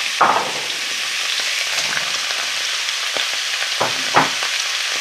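Carrot sticks, onion and pak choy frying in hot oil in a wok on full heat: a steady sizzle, with a few short louder spurts, the loudest about four seconds in as more vegetables go into the oil.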